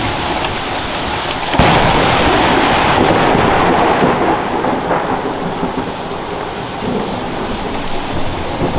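Steady heavy rain, then a very loud thunderclap about one and a half seconds in that rumbles on and slowly dies away over several seconds.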